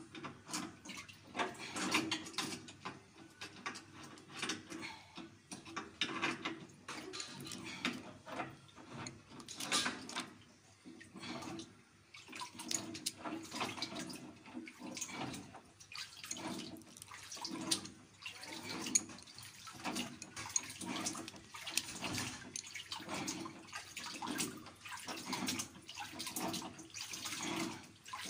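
Water dripping and splashing in a water tank, with irregular clicks and knocks of pliers working on a brass float valve fitted to PVC pipe.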